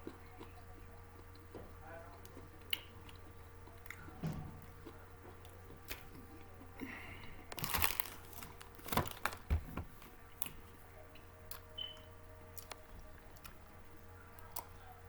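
A person biting and chewing a crunchy snack close to the microphone: scattered crisp crunches, thickest a little past the middle.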